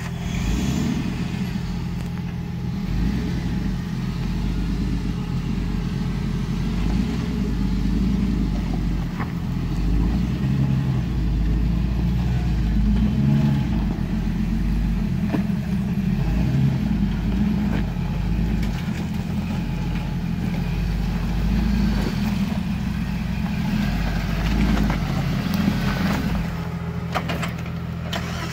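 Jeep Comanche pickup's engine running at low revs under small throttle changes as it crawls over rock.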